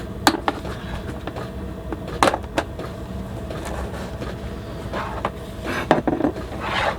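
Scattered sharp clicks and knocks from handling a hard plastic storage case and the soldering torch kit inside it, a few seconds apart, over a low steady hum.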